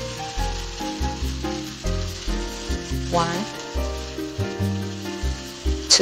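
Beef tripe and vegetables sizzling steadily in a wok as spoonfuls of white vinegar are added.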